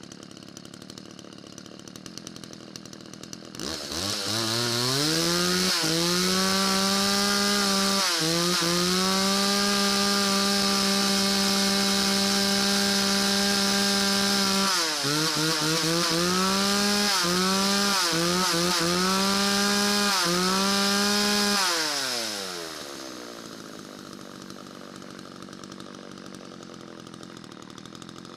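McCulloch Mac 3516 two-stroke chainsaw, freshly rebuilt with a replacement carburettor, running low at first, then revved up to full throttle about four seconds in. It is held high with several brief drops in revs, then falls back to idle about 22 seconds in; the saw runs properly after the rehab.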